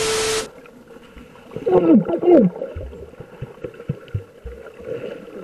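A burst of TV static with a steady beep cuts off about half a second in. Then comes muffled sloshing water close to the camera, with two loud, falling, voice-like cries about two seconds in and a few low knocks.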